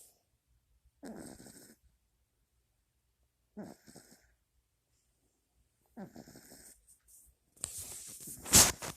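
A sleeping puppy snoring in three short rasping snores, a couple of seconds apart. Near the end comes a louder burst of rustling with two sharp knocks.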